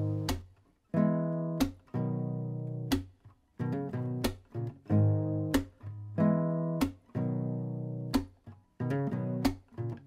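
Acoustic guitar music: chords struck about once or twice a second, each left to ring.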